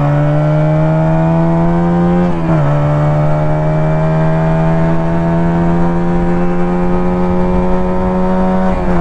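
A 125 cc two-cylinder carburetted chopper motorcycle engine pulling under acceleration, its pitch climbing slowly. Its pitch drops briefly about two and a half seconds in and again near the end as it shifts up a gear, then climbs again from lower revs.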